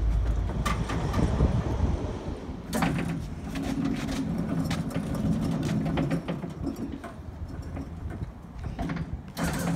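A manual push-type Big Joe walk-behind stacker rolling over concrete as it is pulled back from a pallet. It makes a low rumble and a steady hum from its wheels and frame, with sharp metal clanks near the start, about three seconds in, and near the end.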